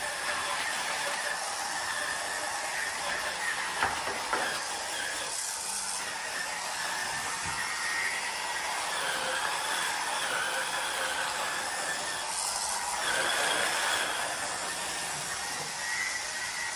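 Hurricane Spin Scrubber's rotary brush head spinning against the tile and grout of a shower floor: a steady motor whine over a scrubbing hiss, with a couple of knocks about four seconds in.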